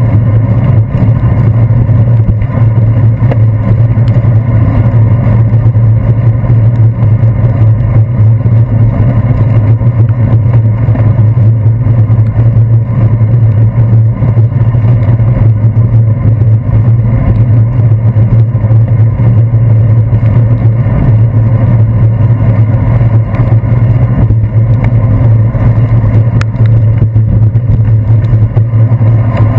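Loud, steady, muffled low rumble of a bicycle rolling over a rain-wet road, picked up by a handlebar-mounted GoPro Hero 2.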